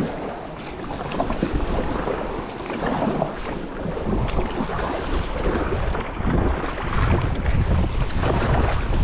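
Kayak paddle strokes splashing and water sloshing against a plastic sit-on-top kayak, with wind buffeting the microphone, heavier in the last couple of seconds.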